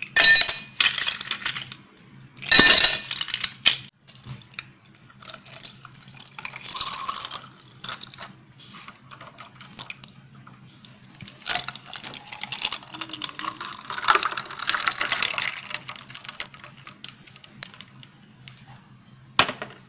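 Raw-mango juice poured from a jug into two glass tumblers, with liquid splashing and clinks of ice and glass. Two loud clatters come in the first four seconds, then softer pouring runs in two stretches.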